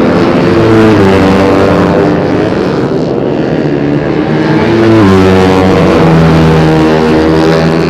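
Race-tuned 150cc four-stroke underbone motorcycles at full throttle, several engines at once, their notes dropping in pitch as the bikes go by, with a fresh wave of them about five seconds in.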